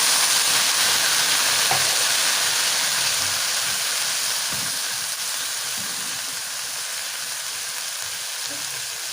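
Freekeh toasted in hot ghee in a pan, sizzling loudly as a little water is poured in. The sizzle fades slowly as the water takes up the heat.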